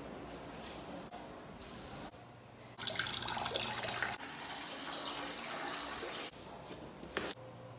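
Toilet flushing: a sudden loud rush of water about three seconds in, easing after about a second into steadier, quieter running water that fades out a couple of seconds later.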